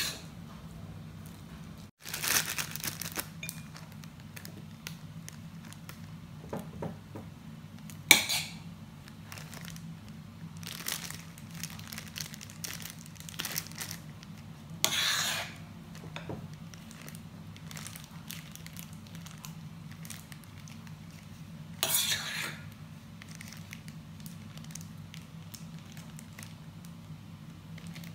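A metal spoon scraping and clinking against a bowl of mashed-potato dough, with a plastic ziplock bag crinkling as the dough is spooned into it; short scrapes come every few seconds, one a sharp click. A low steady hum runs underneath.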